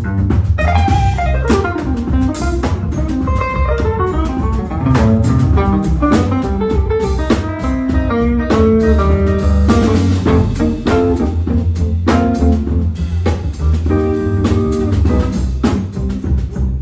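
Live jazz trio: a Telecaster-style electric guitar plays quick melodic runs with some sliding notes, over upright bass and a drum kit.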